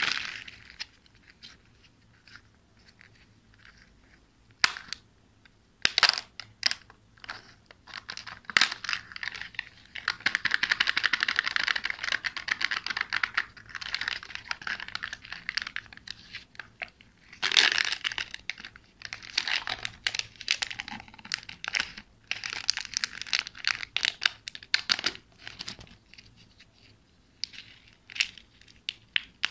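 Plastic surprise-toy eggs handled and opened by hand: foil seals peeled off with a tearing rustle and plastic shells clicking and cracking, with crinkling wrappers. A longer, steady peel comes about ten seconds in.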